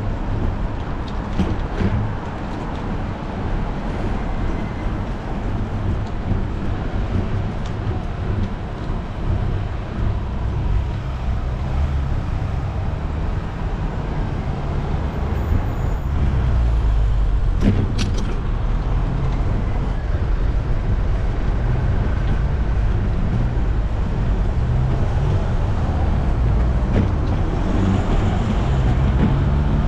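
Street traffic, cars passing on a city road, heard from a moving bicycle over a steady low rumble. A single sharp click comes about eighteen seconds in, and the sound grows a little louder in the second half.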